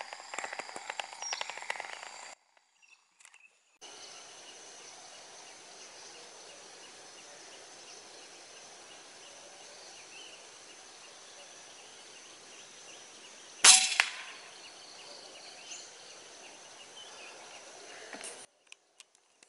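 A single sharp crack from an air rifle firing a 16-grain A1 slug at a squirrel in a tree, with a fainter click about a third of a second later. Steady high chirring of insects runs underneath.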